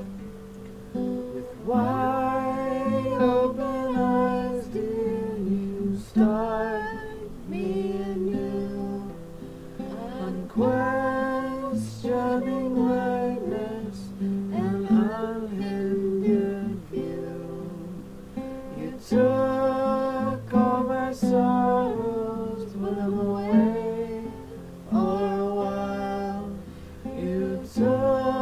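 A song: a solo voice singing lyrical lines in phrases over acoustic guitar accompaniment.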